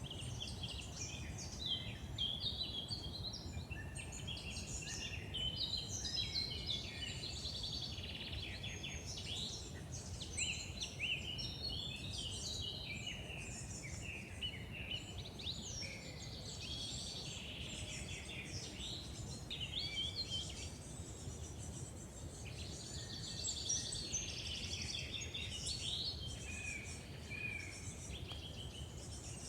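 Several songbirds singing at once in woodland, a dense overlap of quick chirps and trills, over a steady low rumble.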